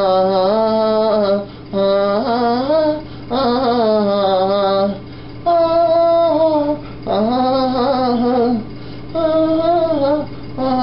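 Slow singing: a voice holds long, wavering notes in phrases of one to two seconds, with short breaks between them. A faint steady low hum runs underneath.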